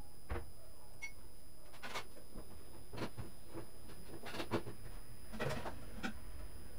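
Light scattered rustles and soft clicks of fabric and thread being handled during hand-stitching, about seven in all, over a steady low hum.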